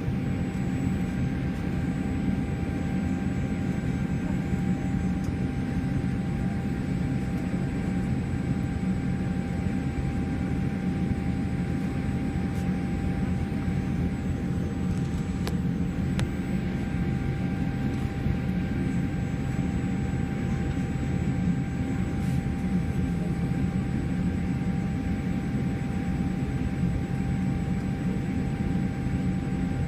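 Boeing 787 Dreamliner engines heard from inside the passenger cabin: a steady low rumble with a faint constant whine over it, holding even.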